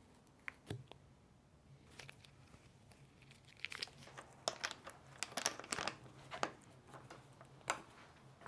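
Light clicks and crinkling rustles of hands working on a bicycle, growing busier about three and a half seconds in, over a faint low hum.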